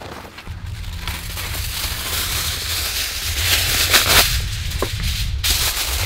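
Aluminium foil being pulled off its roll and handled, a dense crinkling rustle that grows louder, with sharper crinkles about four and five seconds in.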